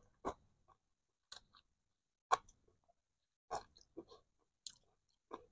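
Eating sounds from a bowl of chicken rice porridge: a spoon tapping and scraping a takeaway container, with chewing mouth sounds. About seven short, quiet clicks spread out, the loudest near the middle.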